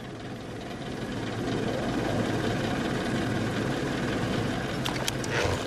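Cartoon sound effect of an electric stand fan running, a steady whirring rush of air that builds about a second and a half in. A few brief clicks come near the end.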